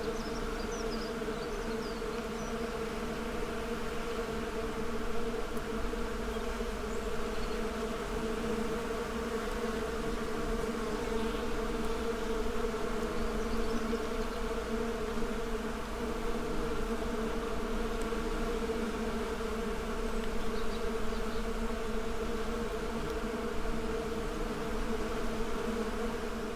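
Many bees buzzing together in a steady, dense hum.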